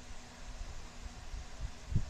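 Steady background hiss with a faint hum and irregular low rumbling, and a louder low thump near the end.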